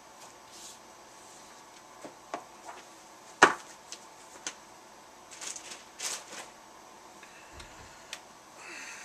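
Handling of a package and the comic books inside: scattered light taps and clicks, a sharp knock about three and a half seconds in, and brief rustles a couple of seconds later.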